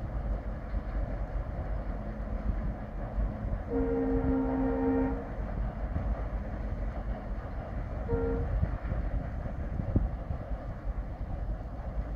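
Air horn of a WDP4 diesel locomotive sounding one blast of about a second and a half, a few seconds in, then a short toot about four seconds later, over the low rumble of the long passenger train heard from far off.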